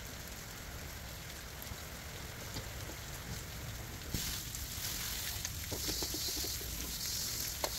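Water from a garden hose spray nozzle hissing onto a soapy carbon steel wok as it is rinsed; the spray gets louder about four seconds in.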